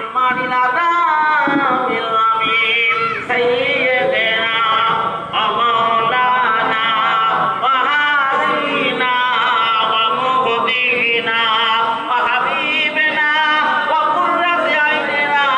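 Unaccompanied male singing of an Islamic devotional song, with long wavering held notes.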